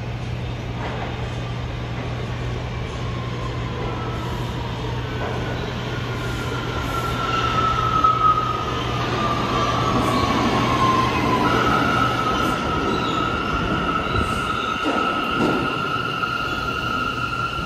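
New York City subway train in the station: a whine that falls in pitch, loudest about eight seconds in, then a steady high-pitched squeal from about twelve seconds on, over a low hum that stops at about the same point.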